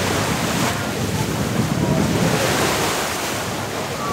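Small sea waves breaking and washing up a sandy shore, with wind buffeting the microphone.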